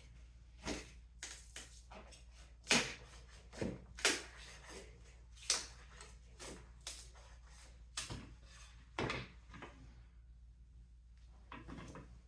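Irregular knocks, clunks and short scrapes of hard wooden pieces being handled and set down, about a dozen in all, the loudest near a third of the way in.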